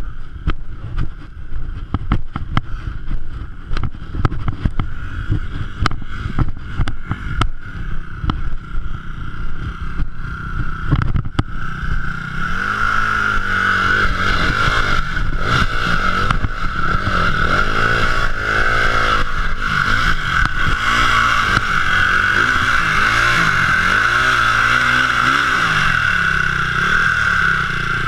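Off-road dirt bike engines. For the first several seconds the sound is uneven, with many knocks and rattles over a rumbling engine. About twelve seconds in it turns steadier and louder: a dirt bike's engine running close by, revved up and down repeatedly.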